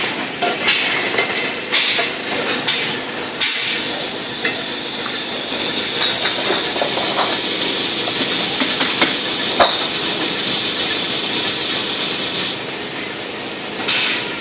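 CBK PI-6-6 portable inline filler-crowner running while it fills beer bottles. A steady machine noise carries a constant hiss, with several short hissing bursts in the first few seconds and another near the end.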